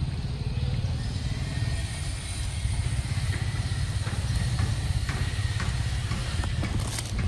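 Steady low outdoor rumble, with a few faint clicks in the second half and a short sharp burst near the end.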